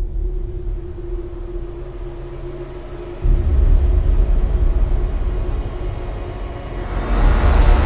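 Deep rumbling bass drone of a dramatic soundtrack with one steady held tone over it, stepping up in loudness about three seconds in and swelling near the end.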